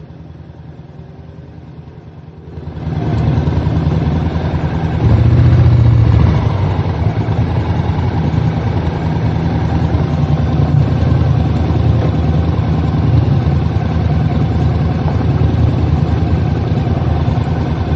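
Motorcycle engine running, with low steady engine drone. It is fairly quiet at first, gets much louder about three seconds in, swells for a moment around five seconds, then holds steady.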